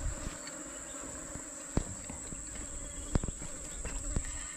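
Steady high-pitched drone of an insect chorus, with a few sharp knocks through the middle and near the end.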